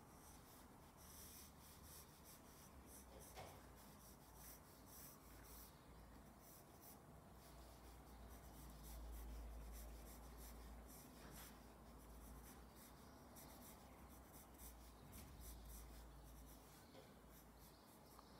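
Graphite pencil scratching across drawing paper in quick, irregular sketching strokes, faint. A low rumble swells briefly around the middle.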